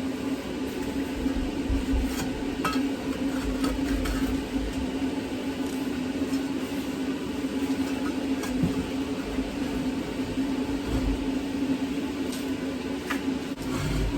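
Light metallic clinks, scrapes and knocks as ash and debris are cleared out of a wood-burning furnace's grates and vents, scattered irregularly over a steady low hum.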